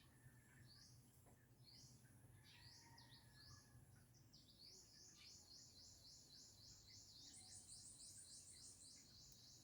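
Faint bird song: a few separate high, rising chirps, then a fast trill of evenly repeated high notes, about five a second, that runs for several seconds.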